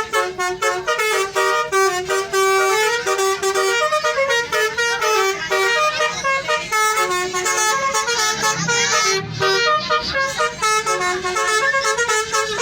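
Indonesian 'telolet' bus horn, a multi-tone musical air horn, playing a quick tune of stepping notes with a few held longer.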